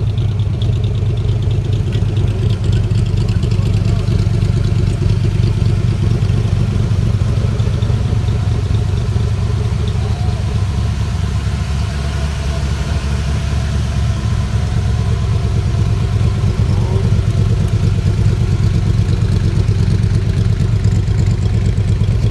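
Shelby Cobra roadster's engine idling steadily, a low, even engine note with no revving.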